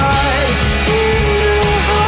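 Background music: a steady song with a sustained melody over a constant bass.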